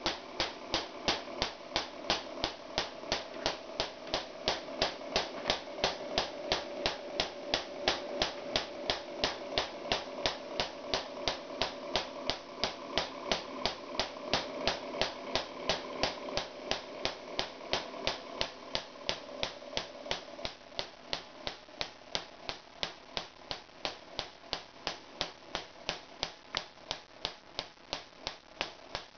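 Pulsed Royer solid-state Tesla coil firing in staccato mode: each short 20 ms burst throws a branched spark discharge, heard as a regular sharp crack a few times a second. A steady hum runs underneath and drops in level about twenty seconds in.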